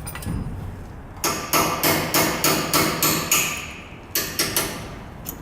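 Steel hammer striking the steering knuckle and tie rod end, knocking the tapered tie rod stud loose: a quick run of about eight sharp metallic blows, then three more, spaced out.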